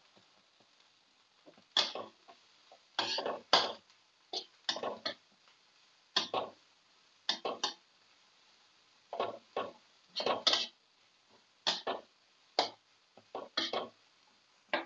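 Metal spatula scraping and clanking against a wok as shredded cabbage is stir-fried, in short irregular strokes, often in pairs, about one or two a second.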